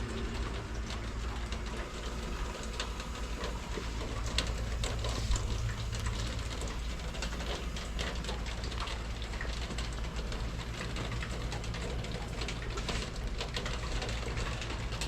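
2017 SmartComfort 2-ton heat pump outdoor unit running with a steady low hum, over a hiss and many irregular crackling ticks.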